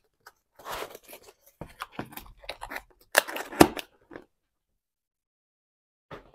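Cardboard diamond painting kit box being handled and slid across a wooden tabletop: a run of irregular rustling and scraping noises lasting about three and a half seconds, loudest about three seconds in, then a faint click near the end.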